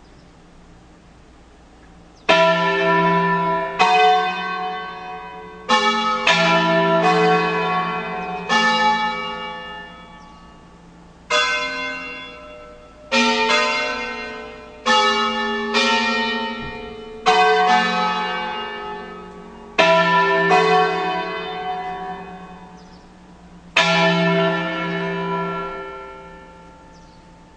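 Church bells of a five-bell Ambrosian ring tuned E, F♯, G♯, A and B, struck one at a time in a slow tune, a concerto. There are about a dozen single strokes of differing pitch, every one to two seconds, each ringing on and fading before the next. They begin about two seconds in.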